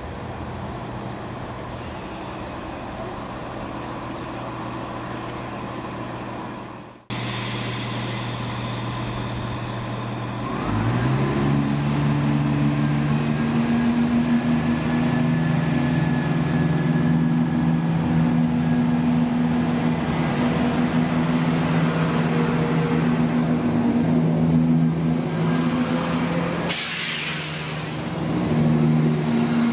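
Diesel train engine running with a steady low drone. About ten seconds in, the engine powers up, its pitch rising and then holding steady, with a short burst of hiss near the end.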